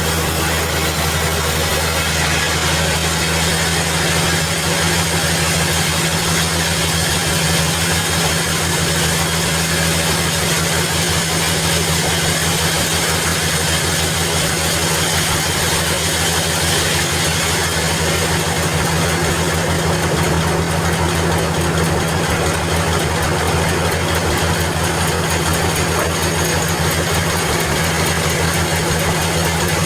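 Sawmill machinery running steadily: a constant engine-like drone with a low hum and an even hiss over it, unchanged throughout.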